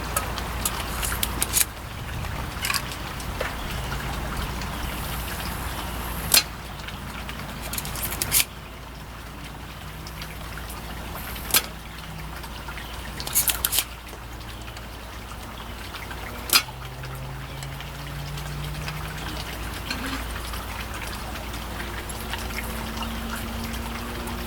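Sharp clicks and taps, about eight of them at irregular intervals and a couple in quick succession, over a steady hiss.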